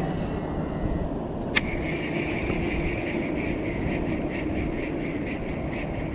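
Baitcasting reel (Shimano Curado DC) engaging with a sharp click about one and a half seconds in, then whirring with a fast even pulse as the handle is cranked to retrieve the lure. Wind rumbles on the microphone underneath.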